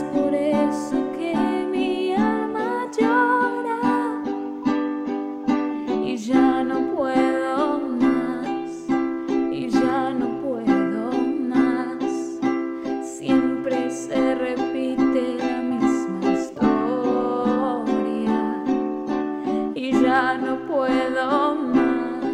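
Venezuelan cuatro strummed in a steady rhythm through chord changes, over a backing track of a woman singing a slow ballad.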